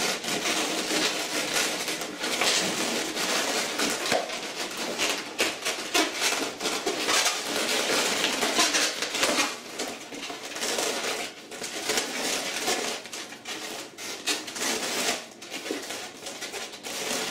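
Latex 260 modelling balloons squeaking and rubbing against one another as they are twisted and tied together by hand, in an irregular run of squeaks.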